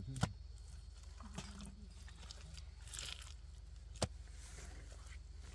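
Wet mud mortar being pressed and smoothed by hand onto stacked sun-dried mud bricks, with soft squelching and two sharp knocks, about a quarter second in and just after four seconds. A steady low hum runs underneath.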